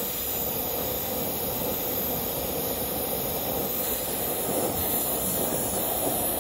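Brazing torch flame hissing steadily as it heats a copper refrigerant line joint at an air-conditioning condenser's service valve.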